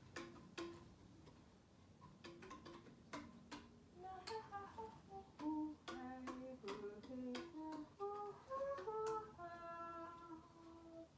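Sparse, sharp tabla strokes, joined about four seconds in by a woman's wordless humming voice that steps between notes and ends on one long held note.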